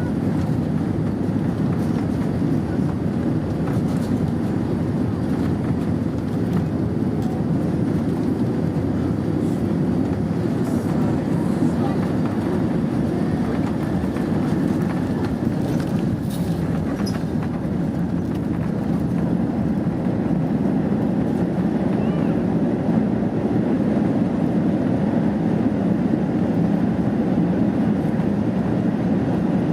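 Steady rumble of an Airbus A320's engines and airflow heard inside the passenger cabin, getting a little louder in the last third, with a few faint rattles.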